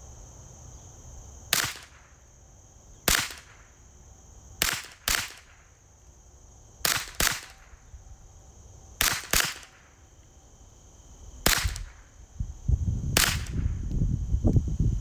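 Ruger 10/22 semi-automatic .22 LR carbine fired ten times, single shots and quick pairs spaced about one to two seconds apart. A low rumbling noise builds over the last couple of seconds.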